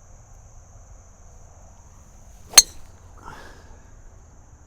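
A golf driver strikes the ball off the tee: one sharp, loud crack about two and a half seconds in. Insects keep up a steady high-pitched drone throughout.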